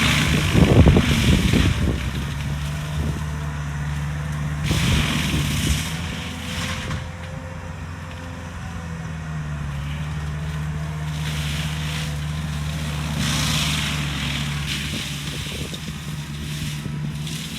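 Skid steer engine running steadily with a mulching drum attachment, with surges of grinding noise as the drum chews into brush: loudest about a second in, again around five seconds and near fourteen seconds.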